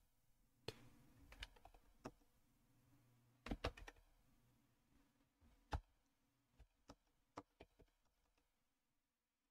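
Scattered keystrokes on a computer keyboard: single key clicks at irregular intervals with pauses between them, and a quick run of three or four keys about three and a half seconds in.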